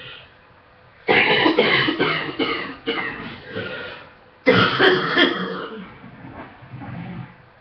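A woman coughing from an illness, her morning cough: a run of about five coughs from about a second in, then a second fit about halfway through that trails off.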